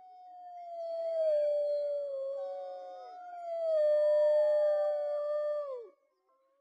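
Wolves howling together: several long howls at different pitches overlap, held steady and then sliding down in pitch as they end, all stopping about six seconds in.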